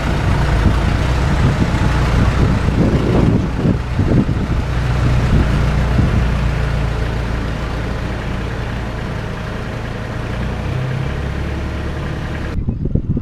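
Mitsubishi Fuso dump truck's diesel engine running steadily as the truck pulls out and drives away, growing a little fainter over the second half. The sound changes abruptly near the end.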